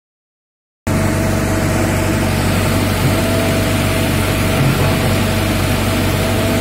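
Komatsu PC75 hydraulic excavator's diesel engine running at a steady speed as the arm and bucket are worked. The sound cuts in suddenly out of silence about a second in.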